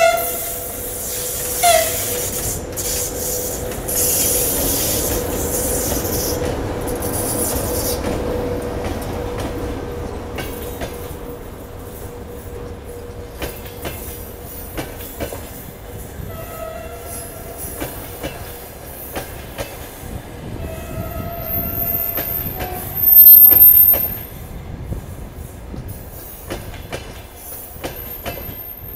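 VL80T electric locomotive at the head of a passenger train sounding two short horn blasts as it reaches the camera, then running past loudly with a steady hum. Its passenger coaches follow, rolling by with wheel clatter and high wheel squeals, and there is a loud burst of noise a little over 20 seconds in.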